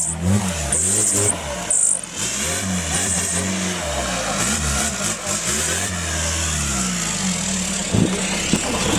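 Off-road competition vehicle's engine revving hard, the pitch repeatedly climbing and dropping as the throttle is worked, with short bursts of hiss in the first few seconds.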